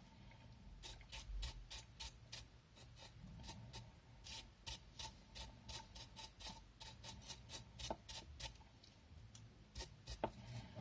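A brush scrubbing the dusty motor of a small exhaust fan, in quick repeated strokes a few times a second.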